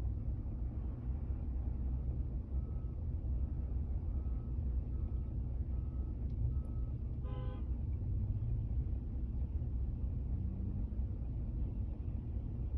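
Steady low rumble of road traffic and the idling vehicle, heard from inside the cab at a busy intersection. A series of faint, evenly spaced beeps a couple of seconds in, then a short car-horn toot a little past halfway.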